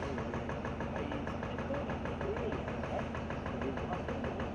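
A mobile crane's diesel engine running steadily at idle, with an even, rhythmic pulse.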